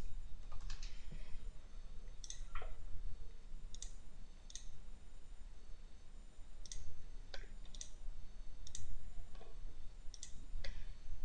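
Computer mouse clicks and a few keystrokes at irregular intervals, over a low steady hum.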